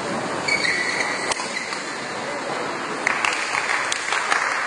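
Badminton rally: a few sharp racket-on-shuttlecock hits and a brief shoe squeak on the court floor over a steady hubbub of spectators, which swells near the end.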